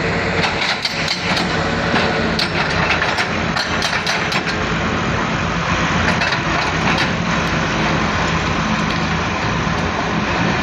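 Volvo excavator's diesel engine running steadily. Sharp clacks and knocks are scattered over the first several seconds, then die away.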